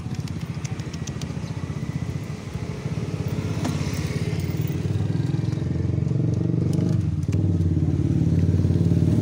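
Small motor scooter engine idling with a fast, even putter that grows louder toward the end, with a few light clicks in the first second.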